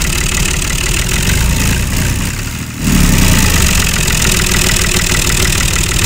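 Tractor engine idling with a steady, fast firing beat. It dips briefly about three seconds in, then comes back slightly louder.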